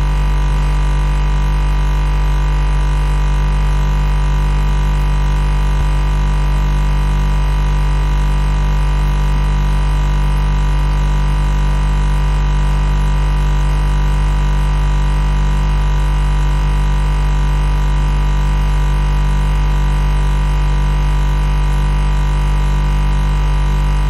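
Refrigerator compressor humming: a steady, unchanging low hum with a stack of higher overtones above it.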